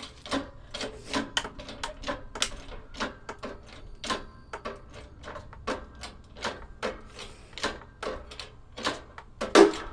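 Repeated sharp knocks and clatter of blows on a coffee maker's housing as it is smashed, irregular at about two or three a second, with the hardest hit near the end.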